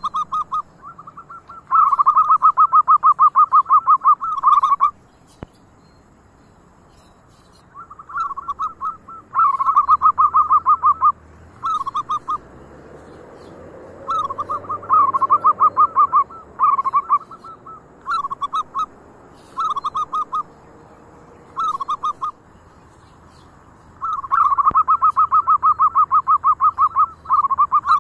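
Zebra doves (perkutut) cooing: repeated phrases of rapid staccato notes, some running two to three seconds, with short pauses between.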